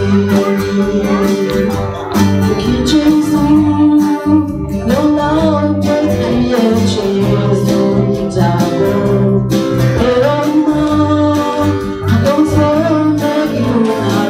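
A woman singing a Christian worship song into a microphone, accompanied by strummed acoustic guitar.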